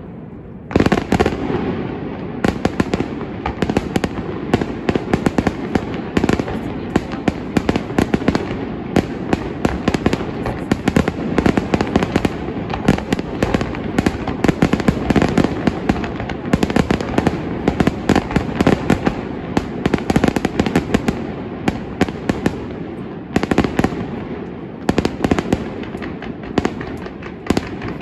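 Dense, rapid barrage of firework bangs and crackles, many a second. It starts about a second in and eases briefly before another cluster near the end.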